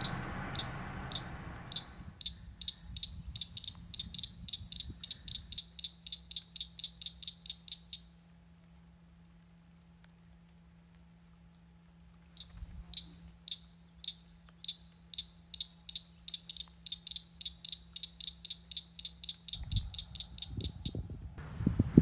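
Swallow-tailed kites calling overhead: a fast, even run of short, high, whistled notes at about five a second. It stops for a few seconds partway through, then starts again.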